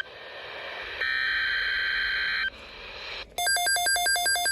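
Emergency Alert System SAME header: a buzzing burst of digital data tones lasting about a second and a half. About a second after it ends, the alert's attention tone starts, a loud, rapidly pulsing two-pitch beeping.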